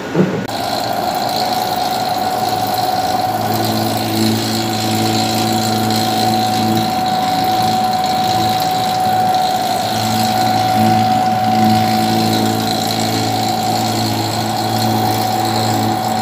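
Commercial dough divider running with a steady motor hum and a constant whine. A lower drone joins about three seconds in.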